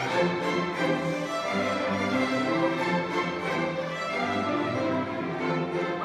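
Youth string orchestra playing: violins and cellos bowing a piece together, with notes moving steadily over a repeating low line.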